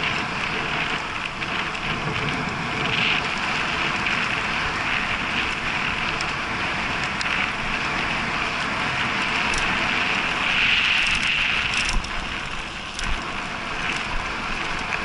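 Bicycle riding along an asphalt path: steady tyre and wind noise with the bike and camera mount rattling, and a couple of sharp knocks in the last few seconds.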